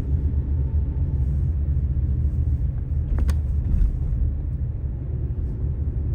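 Blizzard wind buffeting the microphone: a loud, gusting low rumble, with a single sharp click about three seconds in.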